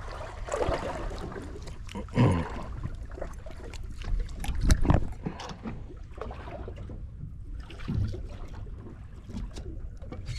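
Water sloshing and lapping around a small drifting boat, with a low rumble of wind on the microphone and a few sharp knocks and thumps, the loudest about two and five seconds in.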